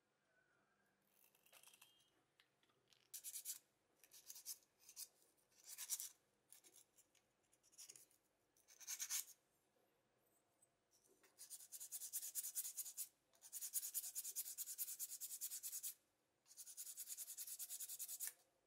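Close scraping and rubbing on the small plastic wheel-arch pieces fitted to a die-cast toy car body: several short scrapes in the first half, then three longer stretches of quick, rasping rubbing in the second half.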